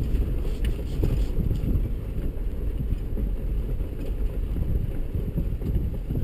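4x4 vehicle driving slowly over a rough, rocky dirt trail, heard from inside the cab: a steady low rumble of engine and tyres on loose rock, with a few light clicks and rattles about a second in.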